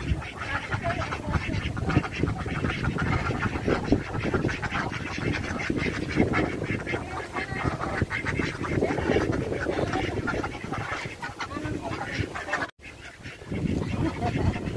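A flock of domestic ducks quacking continuously, many calls overlapping at once. The sound cuts out briefly near the end, then picks up again.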